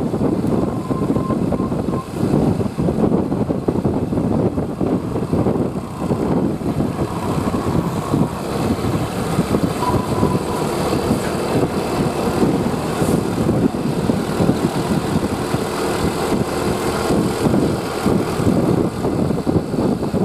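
Vehicle engine running steadily, with road noise.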